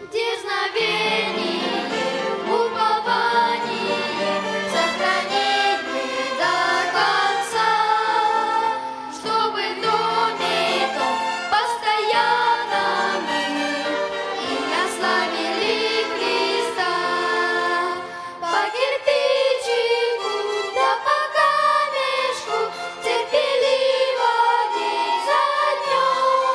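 A church ensemble of voices singing a Christian song together, accompanied by violins.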